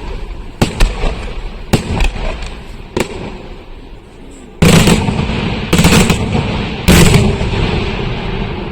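Aerial fireworks exploding: a handful of sharp cracks in the first three seconds, then three heavy booms about a second apart, each rumbling away as it echoes.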